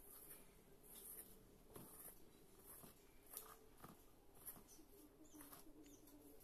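Faint scratching and rustling of a hand rubbing and mixing dry flour in a stainless-steel bowl, in short irregular strokes.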